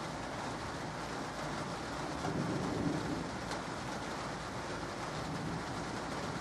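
Light rain falling steadily, with a low rumble of distant thunder swelling about two to three seconds in.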